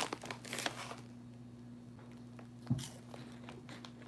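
Faint crunching of cheese curls being eaten, with crinkling of the plastic snack bag in the first second and a soft thump about halfway through, over a steady low hum.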